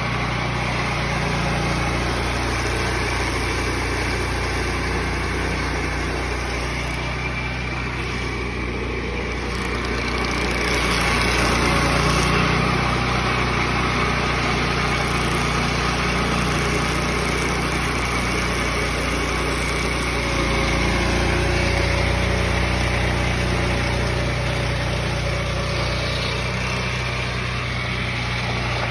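Turbosawmill portable circular sawmill's petrol engine running steadily as the blade cuts through a maple log, a steady low hum with a high tone over it. It grows a little louder about ten seconds in and again about twenty seconds in.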